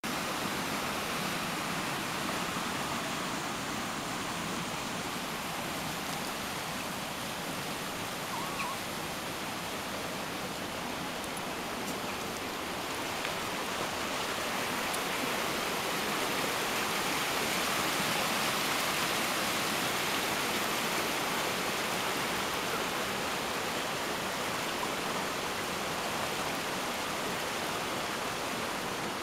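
Fast-flowing stream rushing, a steady hiss of water that grows a little louder midway.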